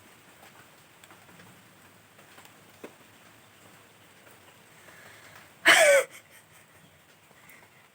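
A short, loud vocal burst, falling in pitch, about three-quarters of the way through, over faint scattered ticks.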